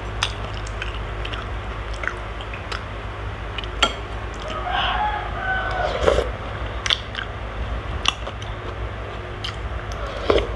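Close-miked eating: slurping batchoy broth and noodles off a spoon and chewing, with a series of sharp clicks from the spoon and mouth, over a steady low hum.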